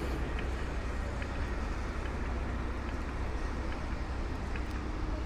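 Steady outdoor city street ambience: a deep, even rumble of traffic and wind, with no single sound standing out.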